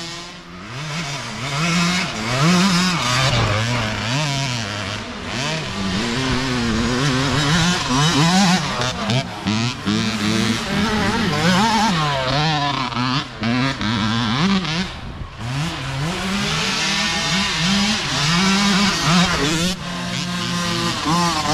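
Mini dirt bike engine revving up and down over and over as the rider works the throttle, its pitch rising and falling every second or two.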